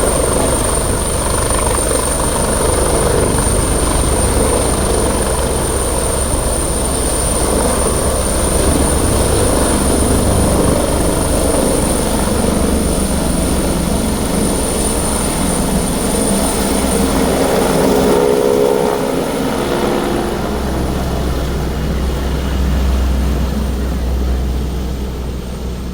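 Helicopter rotor chopping in rapid low pulses, with a steady thin high whine over it. About three quarters of the way through, the pitch drops and the chop gives way to a smoother low drone.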